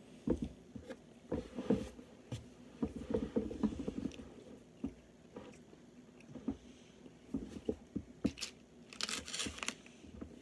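People chewing bites of a blueberry snack cake, with small wet mouth clicks and smacks scattered throughout. A short hissy noise comes a little after nine seconds in.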